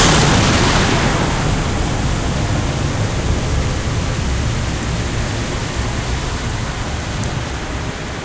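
Nuclear bomb explosion sound effect: the blast hits suddenly, then a deep rumble with a hiss on top carries on and slowly fades.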